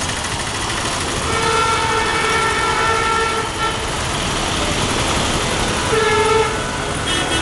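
Busy road traffic noise with a vehicle horn honking twice: one long honk lasting about two seconds, starting just over a second in, and a shorter honk about six seconds in.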